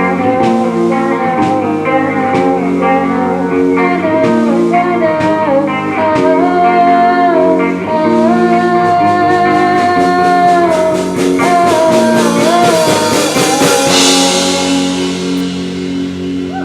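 Live rock band playing: electric guitars, bass and drums with a sung melody line, a cymbal wash swelling near the end.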